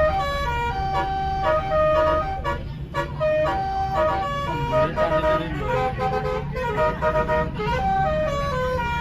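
Basuri telolet multi-tone bus horn playing a quick melody of short held notes that keep jumping in pitch, over the bus engine's low steady rumble.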